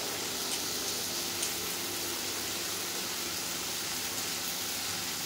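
Steady, even hiss of kitchen background noise with a faint low hum.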